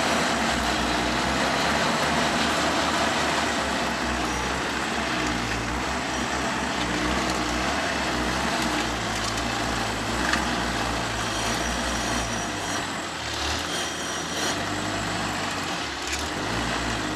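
Engine of a low-pressure-tyre all-terrain vehicle running steadily under load in low gear while it drives through deep snow, heard from inside the cab.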